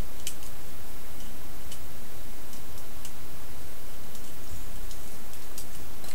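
Scattered small plastic clicks and ticks, some in quick pairs, as the jointed parts of a Transformers Sea Attack Ravage action figure are folded and snapped into place during its transformation. A steady hiss lies under them.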